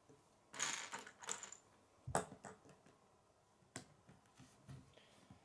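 Plastic K'nex rods and connectors clicking and clattering as they are handled and snapped together, a scatter of sharp clicks with a brief rattle near the start and the loudest click about two seconds in.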